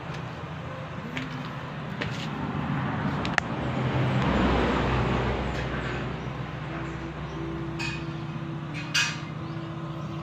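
An engine running steadily at a low idle. It grows louder for about two seconds about four seconds in, then settles back.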